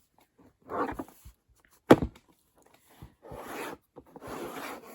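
Cardboard headphone packaging being handled: a short rustle, a single sharp snap about two seconds in, then two longer rustling slides.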